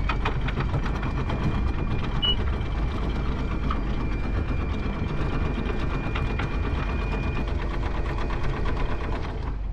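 Electric anchor windlass paying out chain: a fast, even rattle of chain over the gypsy with a steady motor whine and low rumble, stopping suddenly near the end.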